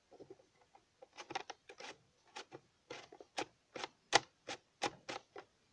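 Faint handling noise on a plastic toy: a run of about fifteen short, irregular clicks and taps, bunched at first and then coming two or three a second.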